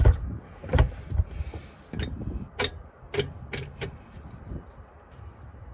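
Tools and metal parts being handled and set down: a string of sharp knocks and clinks over the first four seconds, then quieter rustling.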